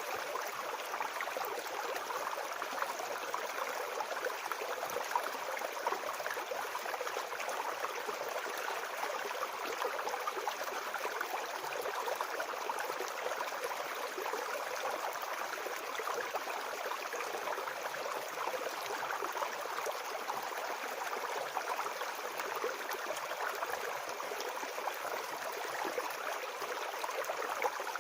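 Small forest brook babbling and trickling over stones, a steady splashing flow with no break.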